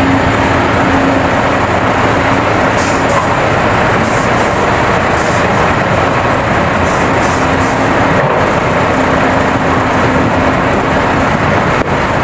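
Large hydraulic mining excavator's diesel engine running steadily under load, a dense, loud mechanical noise with a low hum that fades in and out as it works.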